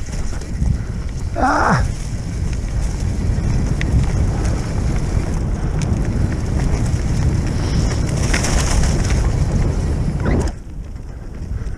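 Mountain bike descending a dirt trail at speed: wind buffeting the camera microphone as a heavy rumble, with the tyres rolling over dry leaves and dirt and the bike rattling over bumps. A brief rising squeal about a second and a half in, and the rumble drops sharply near the end.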